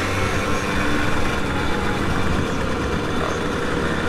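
Motor vehicle engine running at a steady speed on the move, with road and wind noise.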